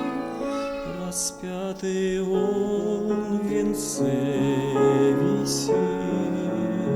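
A male solo voice sings a slow hymn with vibrato over instrumental accompaniment.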